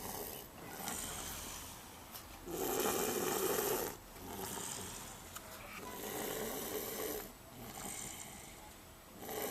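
A toddler snoring in her sleep: a loud snoring breath about every three and a half seconds, with quieter breaths between them.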